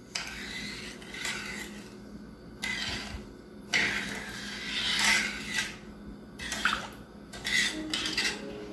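Metal spoon stirring crystal sugar and water in a stainless steel saucepan, scraping and clinking against the pan in irregular strokes. The sugar has not yet dissolved.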